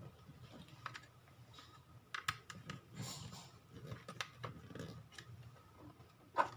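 Faint, irregular clicks and light scraping as an SSD is pulled out of a universal laptop drive caddy and refitted the right way round, with one sharper click near the end.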